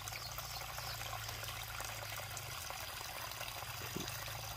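Shallow water flowing and trickling steadily over a sandy, stony canal bed.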